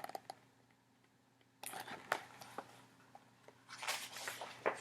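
Faint rustling and light tapping of a picture book's paper pages being handled. A near-silent stretch runs from just after the start to about a second and a half in.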